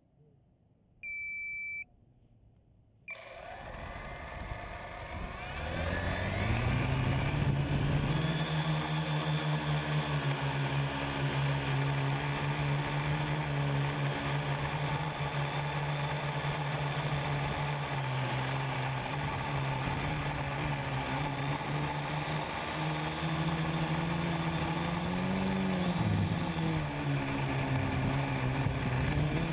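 A short electronic beep, then a quadcopter's electric motors and propellers spin up with a rising whine about three seconds in and settle into a steady drone with a low hum, wavering in pitch as the craft flies. Heard close up from a camera mounted on the quadcopter.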